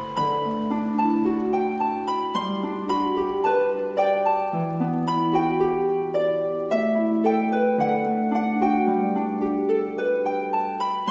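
Background music of plucked-string notes, a flowing run of ringing tones one after another.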